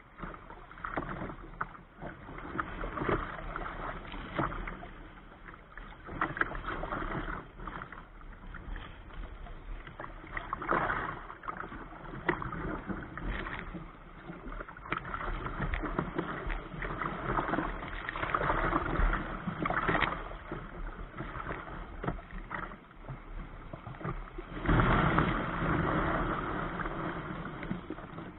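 Choppy sea surf rushing and splashing against a kayak's hull in uneven surges as waves break around the bow. The loudest surge comes near the end, with foaming whitewater around the bow.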